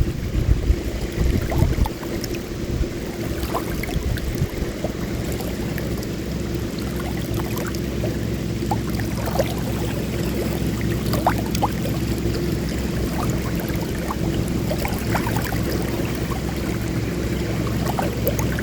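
Small lake waves lapping and trickling, with scattered little splashes, over a steady low rumble of wind on the microphone.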